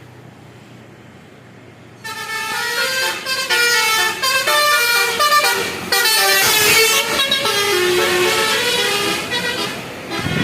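A bus's 'telolet basuri' musical horn plays a quick tune of several changing notes. It starts about two seconds in and runs on.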